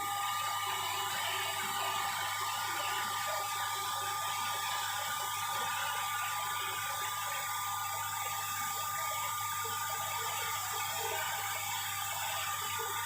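Electric rice huller driven by a 4 HP electric motor, running steadily with a mechanical rattle and hiss and a steady whine.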